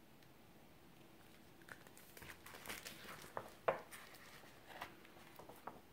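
A picture book being handled and its pages turned: a string of faint paper rustles, crinkles and soft taps, the sharpest about two-thirds of the way in.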